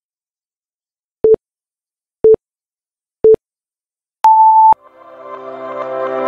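Electronic countdown beeps: three short, lower beeps a second apart, then one longer, higher beep marking zero. Music fades in right after and grows louder.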